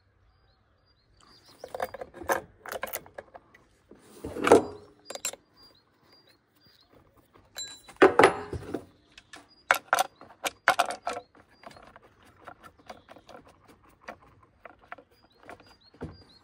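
Steel saw chain clinking and rattling as it is handled and fitted over a chainsaw bar and sprocket, with scattered small metal clicks and knocks. The two loudest rattles come about four and a half and eight seconds in.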